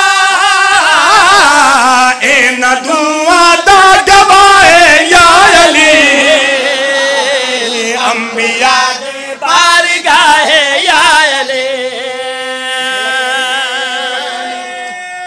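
Men's voices singing a qasida together in a wavering, ornamented chant. For the last few seconds they settle on one long held note that slowly fades.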